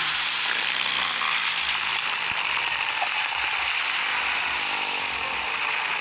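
Giant inflatable pyramid deflating: a loud, steady hiss of air rushing out, with lower tones sliding downward beneath it.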